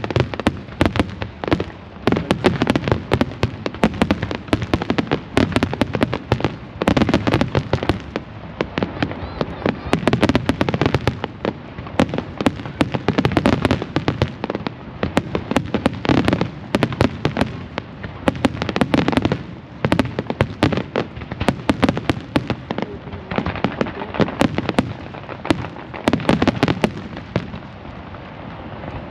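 Large fireworks display: shells bursting in a dense, continuous barrage of sharp cracks and crackles, with deep booms underneath.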